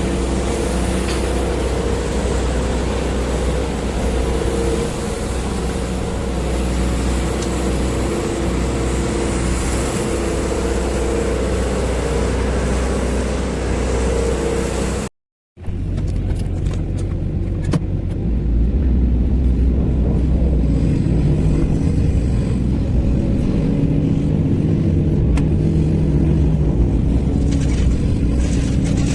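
Sany SY215C excavator's diesel engine running steadily under load. The sound drops out briefly about halfway through, then returns with a deeper, heavier tone.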